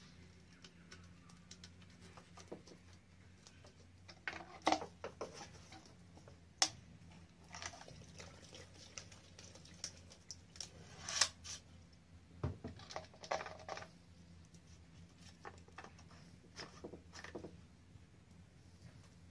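Irregular clicks, taps and knocks of plastic being handled as a chainsaw's fuel cap is taken off, two-stroke fuel mix is poured in from a jerrycan through a cut-bottle funnel, and the cap is put back, with a steady low hum underneath.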